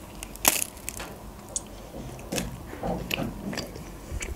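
A person biting into a glazed donut, one sharp bite about half a second in, then chewing with soft, scattered mouth sounds.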